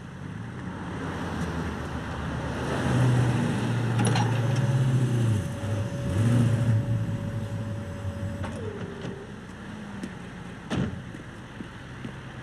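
Street traffic with vehicle engines passing, swelling in the middle. A single held tone drops in pitch about eight and a half seconds in, and a sharp knock comes near the end.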